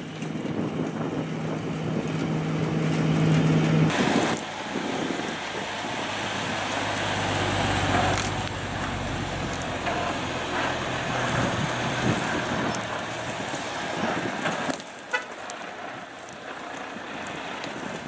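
Diesel engine of a MAN truck carrying a drum wood chipper, running as the truck moves. The first four seconds hold a steady machine hum with one clear low tone. It then changes abruptly to a rougher engine and road noise, with a low rumble that swells about halfway through.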